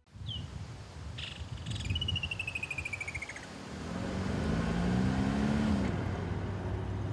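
Woodland kingfisher calling: a sharp high note, then a descending trill lasting over a second. Under it a vehicle engine runs low, growing louder about halfway through as its pitch rises and falls.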